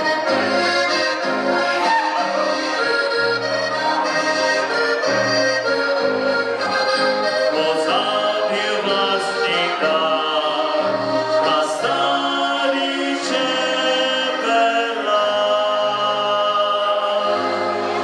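Live band music led by an accordion, with guitars and a bass line alternating between notes in a steady polka beat.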